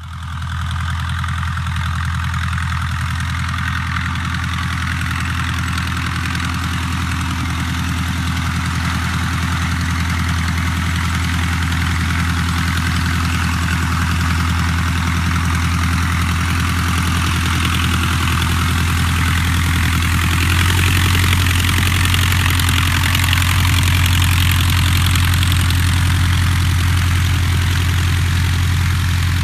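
A British Aircraft Eagle light aircraft's piston engine and propeller running steadily at low throttle while it taxis. It grows a little louder about two-thirds of the way through as the aircraft comes close.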